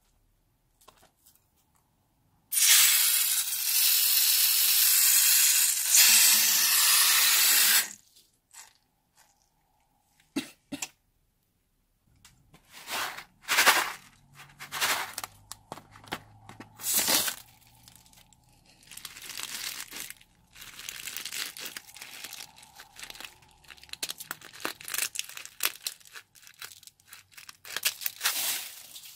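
A loud, steady spraying hiss lasting about five seconds, typical of an aerosol can of foam spraying onto the tray. Later comes a long run of short crackles and snips as scissors cut into a sequin-filled rubber balloon and the sequins spill out.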